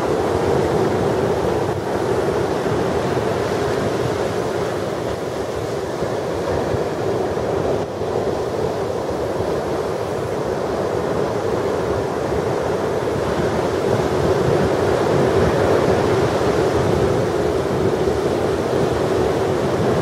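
Large storm-driven Atlantic surf breaking on the beach: a continuous wash of waves that swells and eases without a break, with wind on the microphone.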